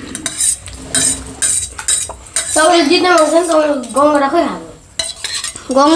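A metal spoon clinking and scraping on a steel plate as the last noodles are scooped up, in quick irregular clicks. A voice calls out in drawn-out tones about midway.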